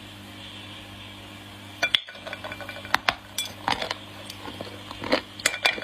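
Dry clay crunching in a run of sharp, irregular cracks and snaps, starting about two seconds in, over a steady low hum.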